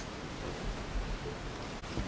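Quiet classroom room tone: a steady low hiss with faint rustling, broken by a brief dropout near the end.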